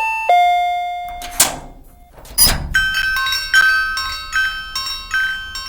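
Two-tone "ding-dong" doorbell chime, a higher note then a lower one held for about a second. Two short noisy swishes follow. Then, from about three seconds in, a small bell is struck repeatedly, two or three strikes a second, each ringing on.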